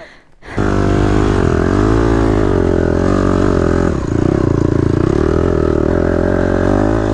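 Dirt bike engine running under throttle on an uphill trail climb, its pitch rising and falling as the throttle is worked. It cuts in suddenly about half a second in.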